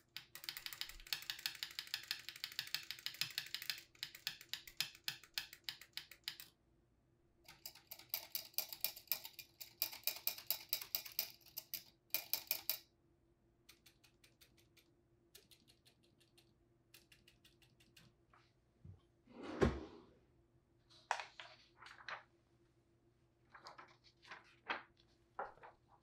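An IBM Selectric Model 1 electric typewriter being typed on in fast, dense runs of rapid key strikes over the machine's steady motor hum. About halfway through the typing thins to scattered clicks and short clusters, with one heavy thunk later on, the loudest sound in the stretch.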